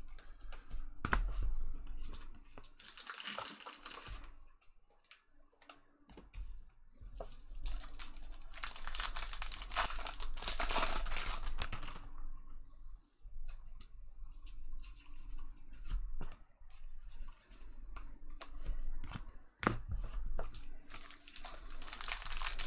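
Trading card pack wrappers being torn open and crinkled as packs of baseball cards are opened, in several spells of rustling separated by quieter pauses.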